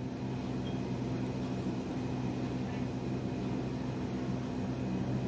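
Steady low machine hum made of several even tones under a faint hiss.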